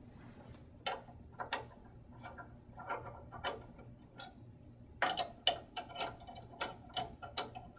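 Hex key working screws loose from a metal stage brace: small, irregular metallic clicks and ticks, sparse and faint at first, then louder and about three a second from about five seconds in.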